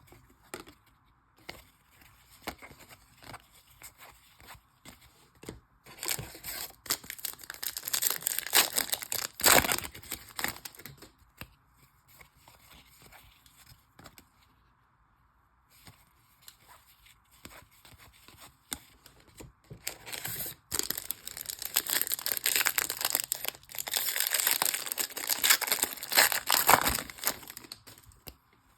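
Trading card pack wrappers being torn open and crinkled by hand, in two long spells of tearing and rustling with quieter handling of the cards in between.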